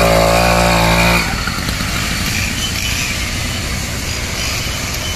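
Two-stroke motorized bicycle engine kit idling steadily, then about a second in the throttle opens and it runs rougher and louder-textured as the bike pulls away.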